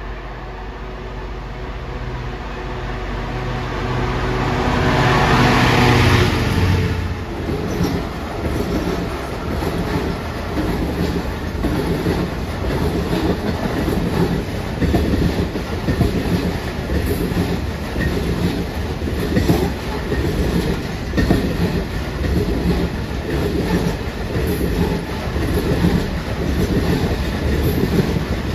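A diesel freight locomotive passes close by, its engine note growing louder to a peak about six seconds in. A long train of hopper wagons follows, its wheels clattering over the rail joints in a steady repeating rhythm.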